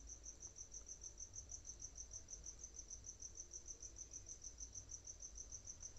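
A cricket chirping steadily: a faint, high-pitched trill pulsing evenly about six times a second.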